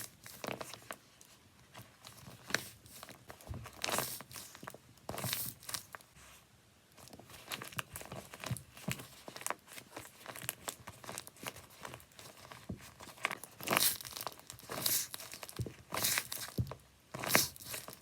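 Homemade paper squishies being squeezed and handled: irregular crinkling and rustling of paper and tape, with louder crunchy squeezes now and then.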